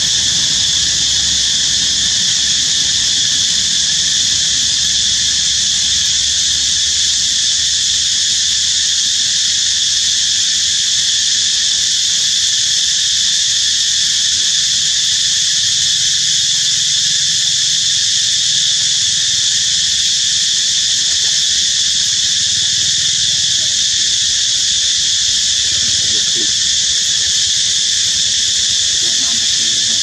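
Loud, steady insect chorus: a high-pitched drone that holds without a break.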